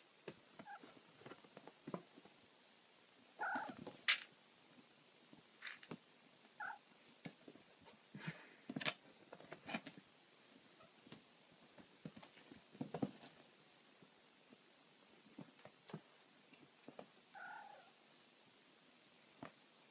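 Kittens wrestling and scampering on a padded cat bed: soft scuffs, bumps and scrabbling, with a few short, high kitten mews scattered among them.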